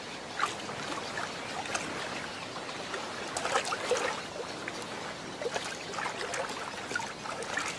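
Shallow water splashing and trickling around a snowy egret's legs as it wades, stirring the water with its feet to flush prey. Small splashes and drips come irregularly over a soft, steady wash of water.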